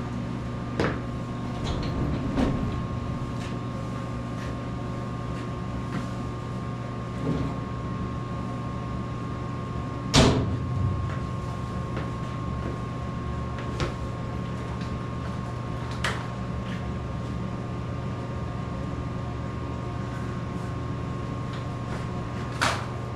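Scattered knocks and clicks from a welded box being handled and measured, the loudest about ten seconds in, over a steady machine hum.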